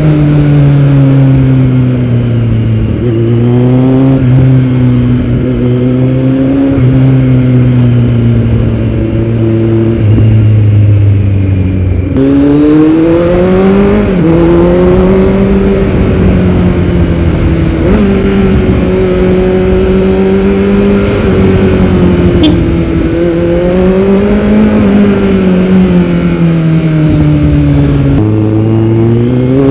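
Kawasaki Z900's inline-four engine running through a Yoshimura R77 full-system exhaust while riding, its pitch rising and falling with the throttle, with sudden changes about twelve seconds in and again near the end.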